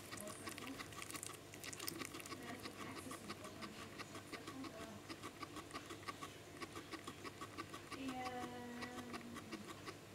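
Guinea pig chewing hay close to the microphone: rapid, even crunching clicks, several a second.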